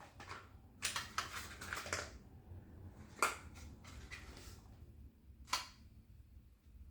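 Handling noises of a new chainsaw and its packaging: a run of rustles and clicks about a second in, then two sharp knocks, one about three seconds in and one near the end.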